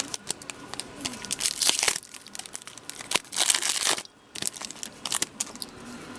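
Trading card pack wrappers being torn open and crinkled, in two main rustling bursts with small clicks and crackles of the wrapper and cards being handled.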